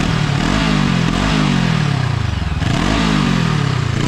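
FKM Expres 500 SC motorcycle engine being revved in repeated throttle blips: the pitch climbs quickly and sinks back more slowly, three times, between stretches of running.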